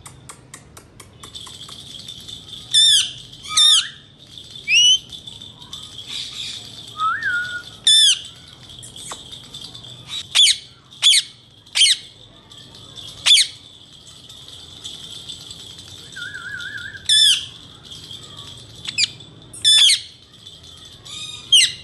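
Indian ringneck parakeet giving about a dozen short, shrill screeches at uneven intervals, with a couple of brief warbling trills, over a steady faint high-pitched hiss.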